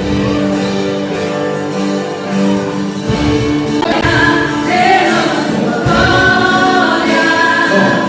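Christian worship song: voices singing over held, sustained chords, with the sung line growing stronger about halfway through.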